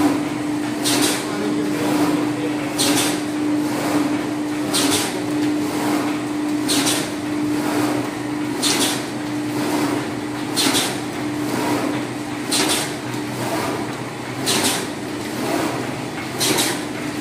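Paper straw making machine running, with a steady motor hum and a short, sharp hiss repeating evenly about every two seconds as it works through its cycle. The hum fades about three-quarters of the way through.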